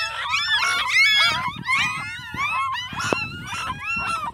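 A litter of rain-soaked newborn puppies squealing. High-pitched cries rise and fall rapidly, several a second, overlapping one another.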